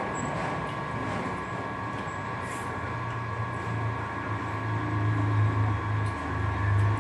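Steady mechanical hum with a constant high whine and a low drone that grows stronger a few seconds in.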